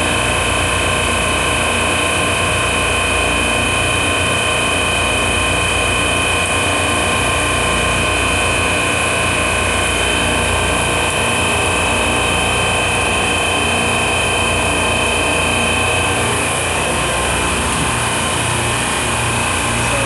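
Supermarket low-temperature refrigeration rack's compressors running steadily: a loud mechanical drone with a high whine on top, the whine shifting slightly about sixteen seconds in.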